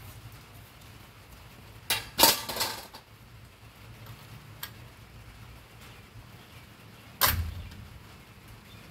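Metal tent-frame poles clanking as they are handled and set down: a short clatter of several knocks about two seconds in, and one heavier clank a little after seven seconds.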